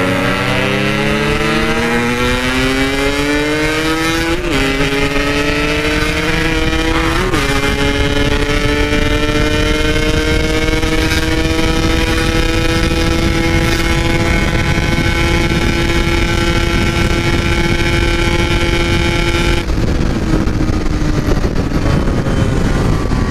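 Yamaha RX-King two-stroke single-cylinder engine pulling hard through the gears: its pitch climbs, dips briefly at two upshifts about 4.5 and 7 seconds in, then holds a high steady note. Near the end the throttle closes and the note sinks, under constant wind rush.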